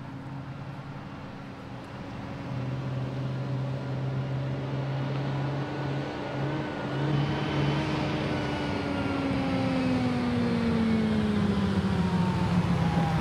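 UAZ-469 military jeep's engine approaching on a dirt road, growing louder throughout, with its engine note falling in pitch over the last few seconds.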